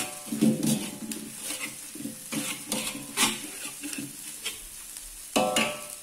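Spatula scraping and turning shredded cabbage in a metal wok as it sizzles: the cabbage being stir-fried in spice paste until wilted. A string of uneven scrapes about one or two a second, with a faint metallic ring from the spatula on the pan.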